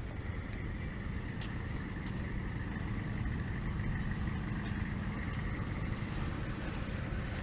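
Engine idling with a steady low hum.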